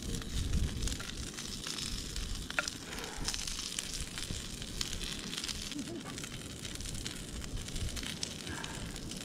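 Meat sizzling on a hot griddle plate over an open fire, a steady crackling hiss. Small clicks and scrapes come through as the pieces are moved off the plate.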